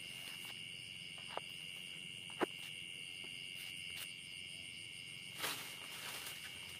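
Steady chirring of night insects, crickets among them, on one unbroken high pitch. A sharp click sounds about a second and a half in and a louder one a second later, and a brief rustle comes about five and a half seconds in.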